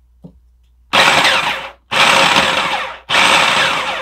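Food processor pulsing: three motor bursts of about a second each, starting about a second in, with short breaks between them, cutting butter into flour, coconut sugar and spices to make crumbs.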